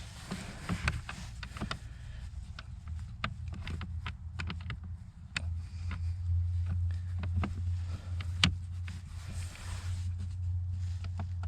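Scattered sharp clicks and light knocks of parts being handled, over a steady low hum that becomes stronger about halfway through.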